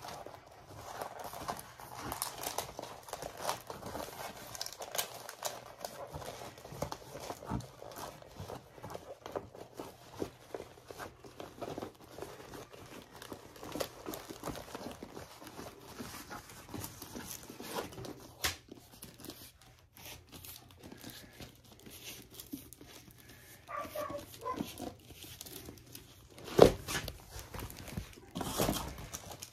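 A diamond painting canvas in its plastic film and the packing paper rustling and crinkling as they are unrolled and handled, with one sharp knock near the end.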